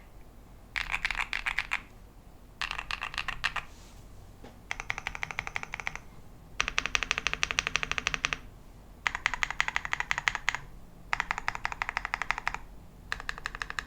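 Mechanical keyboard with MMD Princess tactile switches being typed on quickly in seven runs of rapid keystrokes with short pauses between them.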